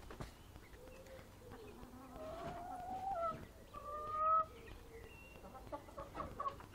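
Domestic chickens calling: several drawn-out, wavering calls and clucks, the loudest a little past the middle, followed by scattered light taps near the end.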